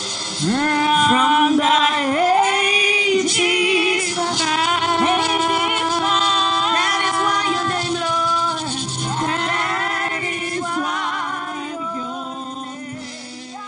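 A woman singing a worship song into a microphone, with long sliding notes over a musical backing; it fades out near the end.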